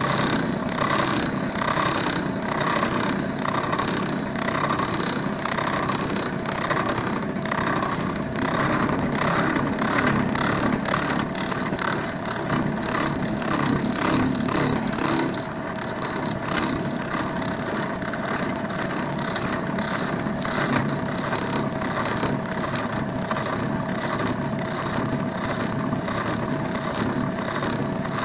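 Milling machine spinning a high-mass balanced fly-cutter as it takes a finishing cut across the face of a metal block, a steady machine whine with an even, fast pulsing from the single cutting tool's interrupted cut.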